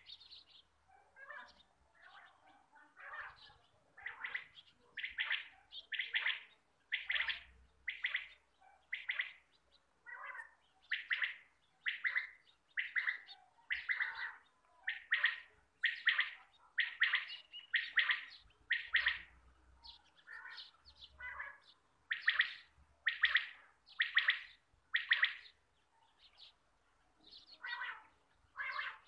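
Quail calling over and over, short sharp calls about once a second, softer for the first few seconds and then louder.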